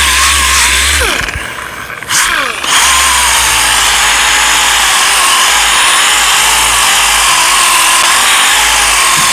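An 8-inch orbital sander runs steadily on body filler with a wavering whine. About a second in it winds down, its pitch falling, then starts up again and runs on steadily.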